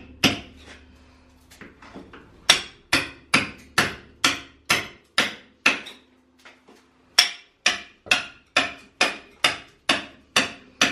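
Repeated hammer blows chipping brick and mortar away from around a door frame set into a masonry wall, freeing it so it can be removed. The strikes come as sharp, even knocks about two a second, in two runs with a short pause between them.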